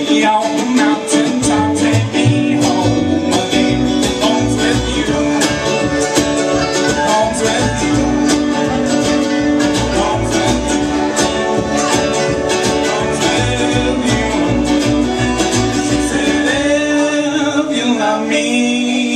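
Live folk band playing an instrumental passage: plucked and strummed acoustic guitar, mandolin and banjo over accordion and cello, with a low bass line that drops out near the end, where singing comes back in.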